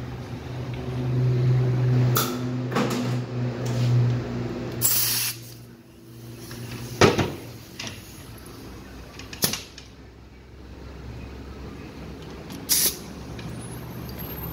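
A steady motor hum for the first few seconds, ending in a short hiss. Then a few sharp metal clinks as bolts and parts of a 4L60-E transmission's valve body are handled on a steel workbench.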